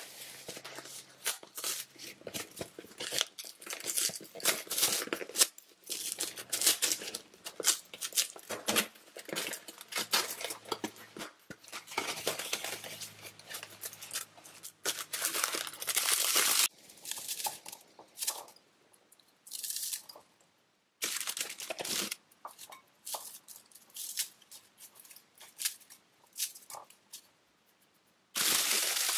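Plastic inner wrapper of a Weet-Bix cereal box being torn open and handled, with irregular crinkling, tearing and rustling of plastic and cardboard, loudest in a long stretch before the middle and again near the end. Dry wheat biscuits are taken out into a bowl.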